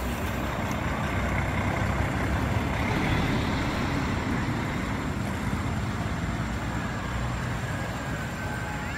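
A motor vehicle going by on the road: a steady engine and tyre rumble that swells about two to three seconds in and then eases off.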